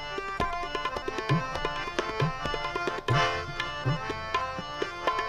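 Instrumental interlude of Sikh gurbani kirtan: two harmoniums play the melody over a tabla accompaniment. Several of the tabla's bass strokes slide upward in pitch.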